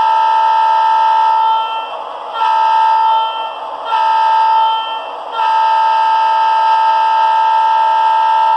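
Leslie S2M locomotive air horn recording played by a SoundTraxx Tsunami sound decoder through a model train's small speaker, sounding a steady chord. One blast ends about two seconds in, two shorter blasts follow, and a long blast starts just past halfway.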